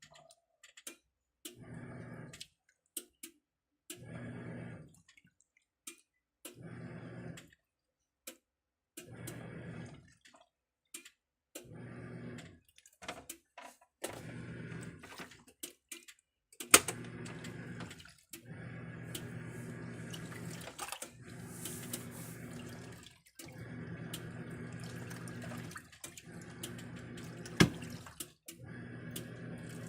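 Plenna washing machine agitating a load in water: the motor runs in short bursts of about a second every two to three seconds with water sloshing, then in longer stretches with brief pauses from about halfway through. Two sharp clicks stand out, one about halfway and one near the end.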